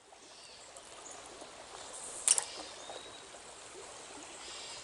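Stream water running steadily, fading in at the start, with one short sharp sound a little over two seconds in.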